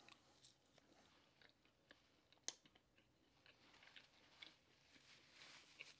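Faint chewing of barbecued pork rib meat: soft mouth sounds with scattered small clicks and one sharper click about two and a half seconds in.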